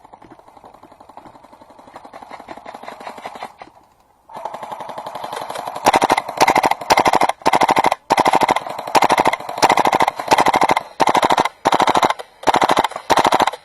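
Airsoft guns firing on full auto: a faint rapid rattle at first, then from about six seconds in a string of about a dozen loud, short bursts of fast clicking fire.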